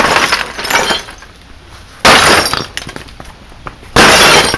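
Hammer blows smashing a Bosch CRT television, glass and plastic shattering in three crashes: one at the start, then two sudden sharp ones about two seconds apart.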